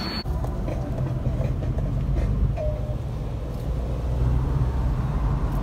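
Steady low rumble of a car driving along a highway, heard from inside the cabin: engine and tyre road noise.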